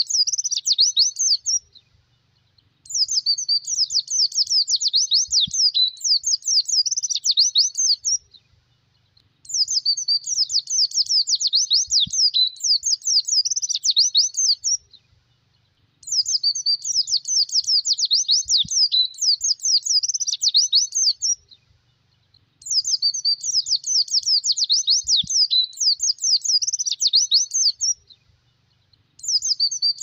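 White-eye (pleci) song: long bouts of fast, high twittering, each about five seconds, broken by pauses of a little over a second and repeating at an even pace.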